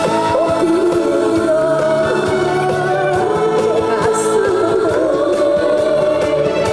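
A woman singing a Korean song into a microphone over a recorded backing track, heard through a stage PA; her voice carries a wavering melody with vibrato over a steady accompaniment.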